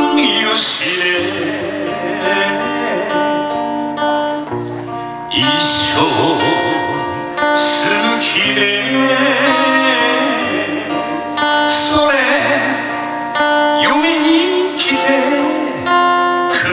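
A man singing a song while strumming his own acoustic guitar, amplified through a stage microphone and PA, with heavy strums standing out every few seconds.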